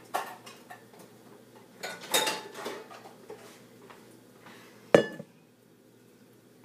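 Kitchenware clattering as a container is fetched: a knock, a rattling clatter about two seconds in, and one sharp, loud knock about five seconds in.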